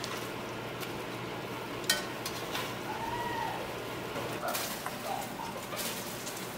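Chicken thighs sizzling steadily as they brown in an enameled Dutch oven, with metal tongs clicking against the pot as the pieces are turned; one sharp clack about two seconds in.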